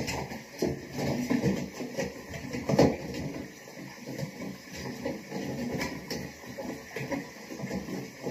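Plastic clicks and knocks from a toilet cistern's fill valve being handled and fitted inside the tank, with one louder knock a little under three seconds in.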